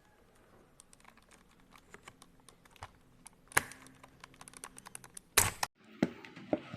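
Typing on a mechanical keyboard: a quick, uneven run of key clicks, with two louder clacks past the middle.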